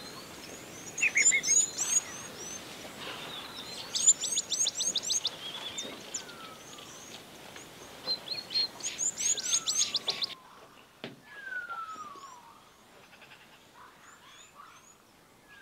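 Several wild birds calling: quick runs of short, high chirps, loudest in the first two-thirds, and now and then a clear whistle falling in pitch. A steady background hiss fades out about ten seconds in.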